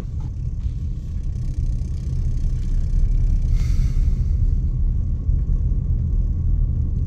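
Car driving on a paved road, heard from inside the cabin: a steady low rumble of tyres and engine that grows a little louder about two and a half seconds in. A brief hiss comes about three and a half seconds in.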